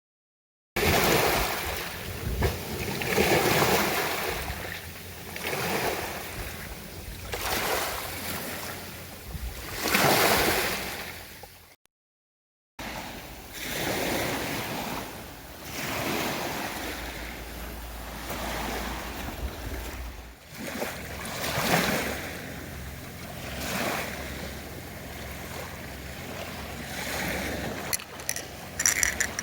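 Sea waves breaking and washing onto the shore, swelling and fading every few seconds, with wind on the microphone. The sound cuts out for about a second near the middle.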